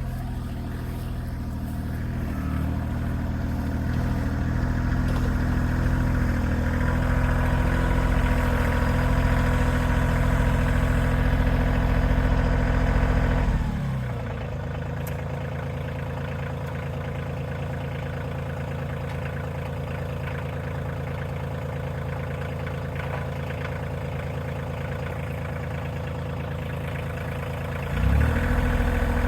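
Engine running steadily at a raised speed, then slowing to a lower idle about halfway through and picking up again just before the end.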